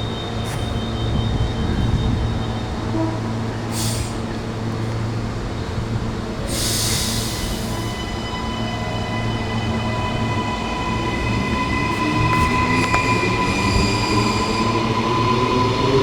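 Queensland Rail NGR electric train humming with high whistling tones from its equipment, with a short sharp hiss of air about six and a half seconds in. Near the end a whine begins to rise in pitch as its electric traction motors start to pull away.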